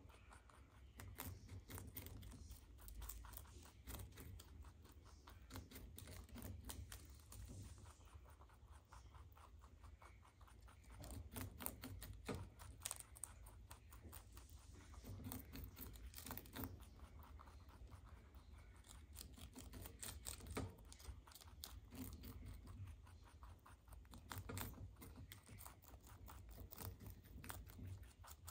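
Two baby rabbits chewing and tearing cabbage leaves: quiet, rapid crunching and tearing clicks that come and go in short spells.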